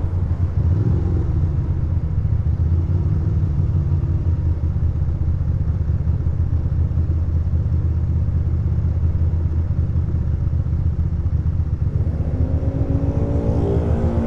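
2006 Ducati Monster 620's air-cooled L-twin idling at a standstill, a low, even rumble. Near the end, a steady higher-pitched sound comes in over it.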